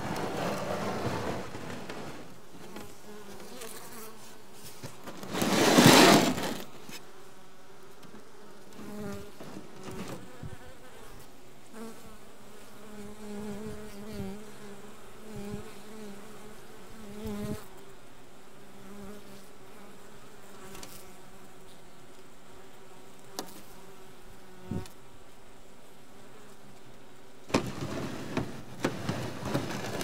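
Honeybee colony inside a frameless Japanese hive, buzzing with a steady hum whose pitch wavers. A loud noise cuts across the buzz about six seconds in, and a few sharp knocks come near the end.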